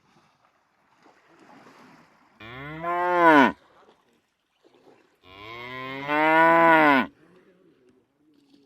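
Buffalo lowing twice: a shorter moo, then a longer one, each rising and then falling in pitch.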